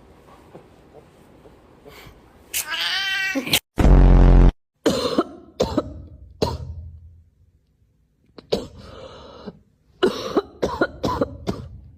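A cat meowing, one wavering call about three seconds in. Around it come a very loud, short, deep-pitched burst and scattered sharp knocks and clatters.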